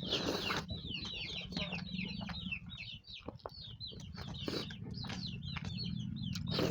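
Chickens cheeping: a rapid run of short, high, falling peeps. Scattered sharp clicks and a steady low hum sit underneath.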